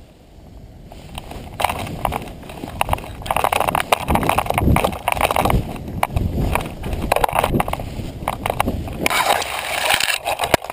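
Wind buffeting and rattling on a GoPro Hero 2 chase camera swinging on its line behind a paraglider landing in strong wind: rough rushing noise full of knocks, quieter for the first second or two and then loud. Near the end the camera is tumbling and dragging through grass.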